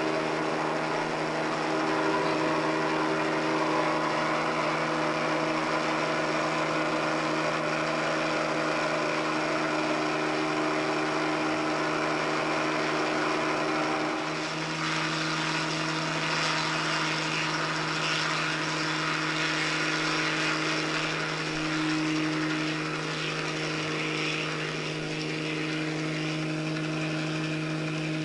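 Helicopter engine and rotor drone heard from inside the cabin in flight: a steady low hum with a whine and hiss over it. About halfway through, the sound shifts and the low hum grows stronger.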